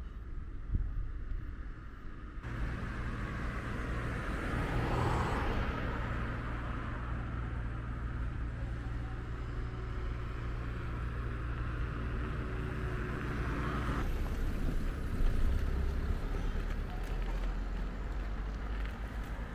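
Road traffic: a motor vehicle's engine running steadily, with a car passing about five seconds in, under low wind rumble on the microphone. The engine sound starts and stops abruptly.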